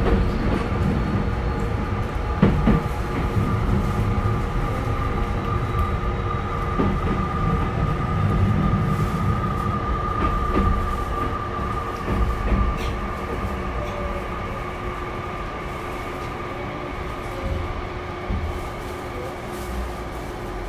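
Tokyu 5050-series electric commuter train heard from inside the car as it runs: wheels on rail with a few sharp joint clicks and a steady whine from the traction equipment, over the air conditioning. It gets gradually quieter as the train slows for a station.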